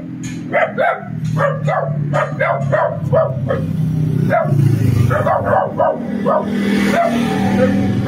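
A dog yelping in short, repeated cries, about three a second, over a steady low hum.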